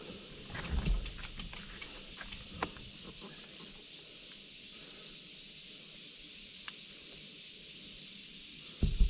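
A steady high-pitched hiss that grows slowly louder, with a few faint ticks early on and a thump near the end.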